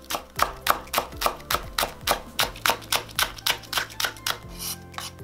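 A chef's knife slicing a Korean green onion on a wooden cutting board: quick, even chops, about four or five a second, stopping about four and a half seconds in.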